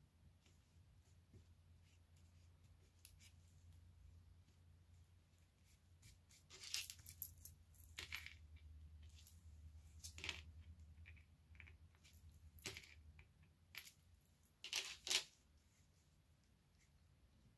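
Faint handling of cut cardstock pieces on a wooden tabletop: paper pressed down and shifted, with a few short, sharp clicks and crackles in small clusters, the loudest about halfway through and near the end.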